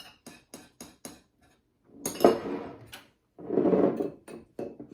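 A spoon clinking against the inside of a cup while coffee is stirred, in quick, evenly spaced clinks about three or four a second. Then come two louder, longer scraping or rustling noises.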